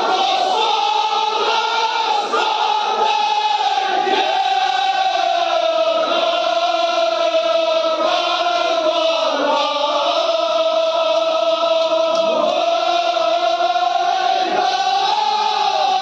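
A large crowd of men chanting a devotional chant in unison: long, drawn-out notes that waver and slide slowly up and down in pitch without a break.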